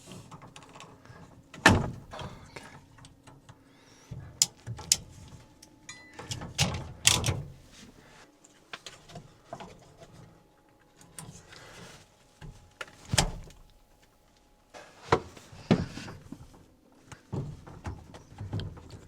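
Scattered knocks, clunks and clicks of plumbing parts and tools being handled and positioned by hand in a small space, with sharp knocks about two seconds in and again around thirteen seconds.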